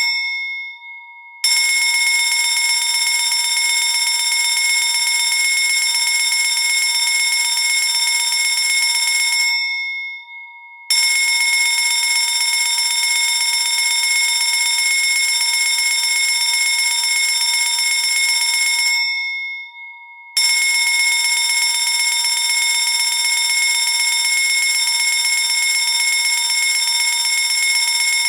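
Electric fire alarm bell ringing loudly in three long spells of about eight seconds each, with a short pause between spells in which the ring dies away.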